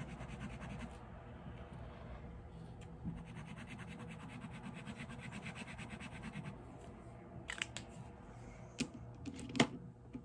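Pencil or crayon scratching on paper in quick, even back-and-forth strokes as a face is drawn and coloured in, stopping after about six seconds; a few sharp clicks follow near the end.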